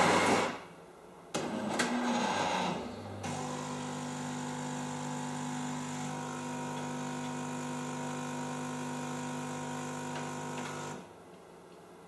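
Jura Impressa Z7 espresso machine at work. A click and a short burst of mechanical whirring come first, then its pump hums steadily for about eight seconds and stops.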